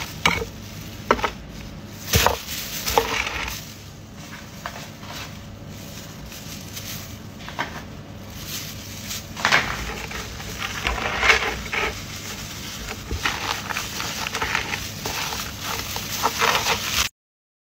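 Metal tongs and a serving spoon clicking and clinking against bowls and a wooden board as sandwich fillings are picked up and laid on, with rustling and crackling as crusty bread is handled and pressed together. The sound cuts off suddenly near the end.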